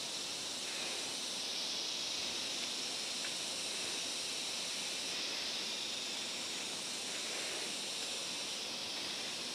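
Steady outdoor background hiss, even throughout, with no distinct sounds standing out.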